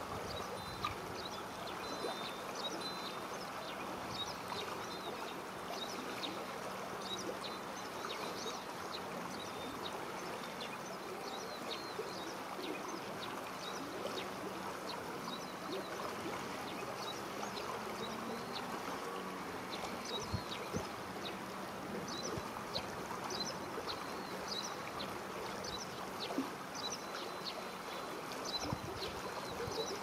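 Steady flow of river water, with many short, high chirps of small birds scattered through it.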